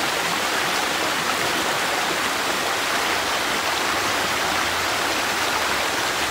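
Flowing stream water rushing steadily, an even hiss with no breaks or distinct splashes.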